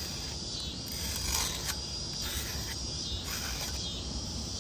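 Sandpaper rubbed lightly along the thin edge of a hand-forged blade, a few soft strokes knocking off the burrs left by the file, over a steady chirring of crickets.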